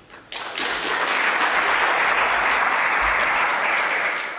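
Audience applauding, swelling within the first second, holding steady, then fading out near the end.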